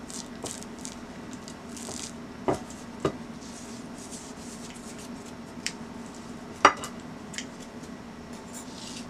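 Raw T-bone steaks handled and turned over on a ceramic plate: soft rubbing with a few light clinks, the sharpest about two-thirds of the way in, over a low steady hum.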